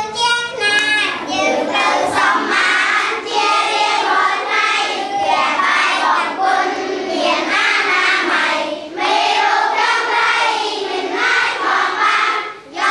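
Group of children singing a song together, with a short pause about nine seconds in.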